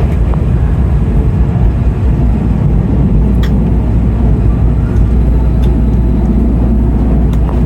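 Passenger train running, heard from inside the carriage as a steady low rumble, with a few faint clicks.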